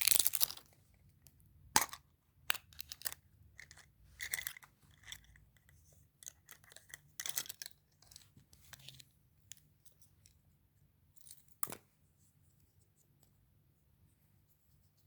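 Candy packaging being handled and torn open: crinkling and tearing in irregular bursts, with one sharp click about twelve seconds in and only faint handling sounds after it.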